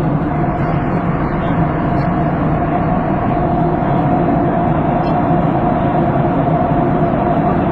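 Passenger aircraft cabin noise in flight: a steady drone of engines and rushing air, with one steady hum standing out above it.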